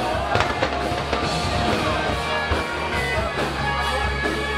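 Music with drums playing, in a rock style.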